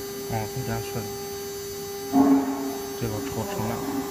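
CNC router running after its job is started, giving a steady, even hum. Faint voices come and go in the background.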